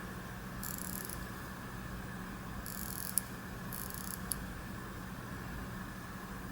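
Soft handling noises as a wristwatch and its wrapping are handled: three short rustles and a couple of light clicks, over a steady background hum.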